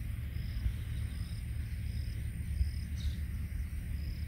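Outdoor rural ambience: a steady low rumble with a faint, short, high chirp repeating about every two-thirds of a second, like a calling insect.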